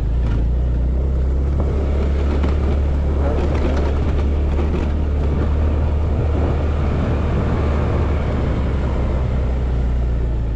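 Motor scooter being ridden along a road: steady engine and road noise with a strong low rumble.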